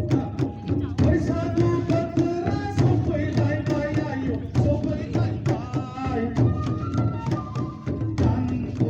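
Folk music with steady hand-drum beats under a melody.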